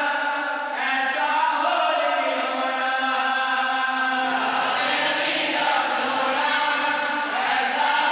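A group of men chanting a Punjabi devotional kalam (a naat in praise of Ali) in long held notes, with lower voices joining about halfway through.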